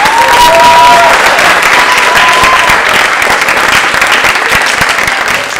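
Theatre audience applauding, a dense steady clatter of clapping, with a few long held cheers rising above it in the first three seconds.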